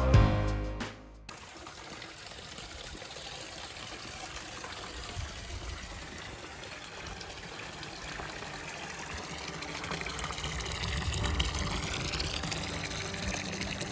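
Music cuts off about a second in, followed by the steady hiss of light rain falling, growing a little louder around ten seconds in.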